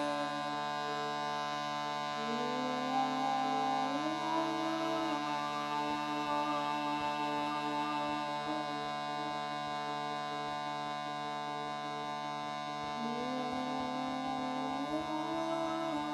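Shruti box holding a steady reedy drone under a wordless sung voice that slides upward in pitch and holds, twice: a couple of seconds in and again near the end.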